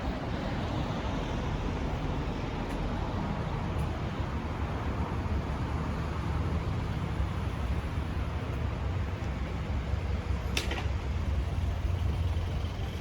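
City street ambience: a steady low rumble of road traffic, with a short sharp clatter about ten and a half seconds in.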